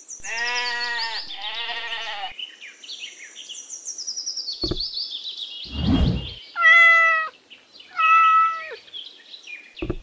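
Two quavering sheep bleats, then after a pause two cat meows about a second apart. A thin, high, chirping whistle runs under them.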